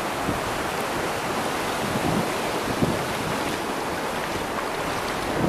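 Shallow sea surf washing in over sand: a steady hiss of water and foam, with wind buffeting the microphone.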